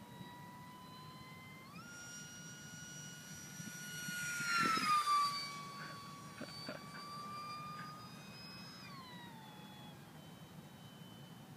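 Radio-controlled model plane flying past, its motor and propeller making a steady whine. The whine steps up in pitch about two seconds in, grows loudest and slides down in pitch as the plane passes close around the middle, then steps down again about nine seconds in.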